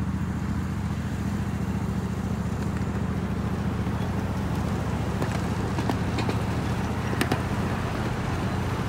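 Miniature ride-on train rolling along its track, heard from a passenger car: a steady low rumble and rattle of the wheels and cars, with a few sharper clicks partway through.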